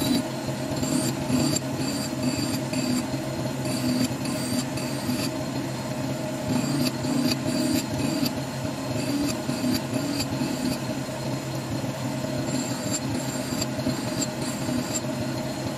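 A Record Power wood lathe's motor runs steadily, spinning a sanding drum held in a drill chuck. A steel axe head is pressed against the drum in short strokes, making a rasping scrape two or three times a second, with a few brief pauses, as the metal is sanded down for restoration.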